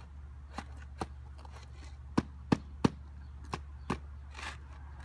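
Hammer nailing down a new roof shingle: a couple of light taps, then three hard blows in quick succession a little past two seconds in, then a few lighter taps.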